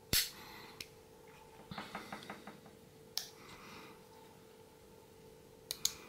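Stainless steel Leatherman Bond multitool being folded shut by hand: sharp metallic clicks and snaps of its handles and folding tools. A loud snap comes right at the start, then a quick run of about six small clicks about two seconds in, a single click a second later, and two quick clicks near the end.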